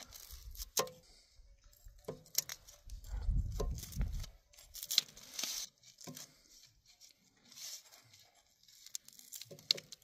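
A hatchet blade pressed and rocked through a baked pizza's crisp crust on a metal pan: repeated crunching and tearing with scattered sharp clicks.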